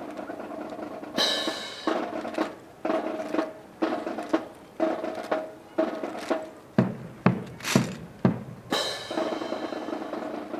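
Sharp percussive strikes in an even rhythm, about two a second, with the loudest near the middle, over a steady hum.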